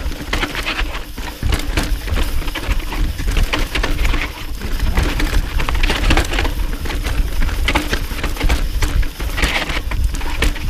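Mountain bike rolling fast down a rocky dirt trail: tyres crunching and clattering over loose rock and gravel, with the bike rattling at each bump, under a steady low rumble of wind on the microphone.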